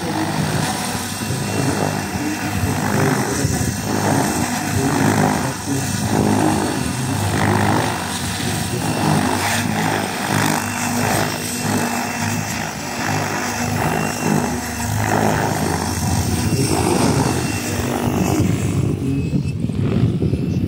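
Specter NME radio-controlled model helicopter flying: a steady pitched hum from its drive and rotor blades with a fluttering chop, turning duller near the end.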